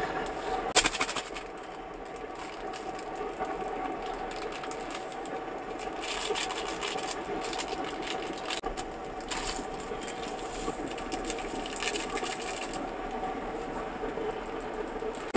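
Plastic ramyun seasoning sachets crinkling and rustling as they are torn open and shaken over a pan of water. There is a sharp knock about a second in. A steady mechanical hum from the cooker runs underneath.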